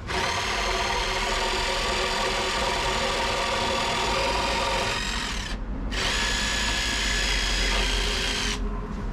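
Cordless power tool motor running in two bursts, a steady whine that rises slightly in pitch as it gets up to speed. The first burst lasts about five seconds, and the second starts after a short pause and stops shortly before the end.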